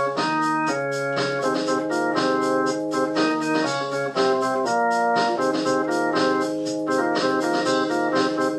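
Electronic organ music: held chords changing every half second or so over a quick, steady beat.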